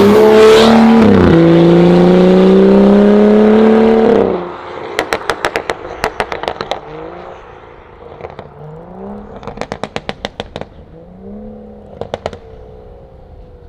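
BMW 535i F10's turbocharged straight-six, on a catless valved exhaust and Stage 2 tune, accelerating hard and shifting up about a second in, then dropping away sharply after about four seconds. It is followed by several rapid strings of exhaust pops and crackles, with short revs between them.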